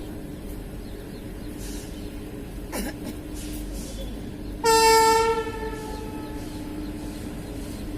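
WAP7 electric locomotive's horn sounding one short, loud blast a little over halfway through, which fades out with a slightly falling pitch, over a steady low hum.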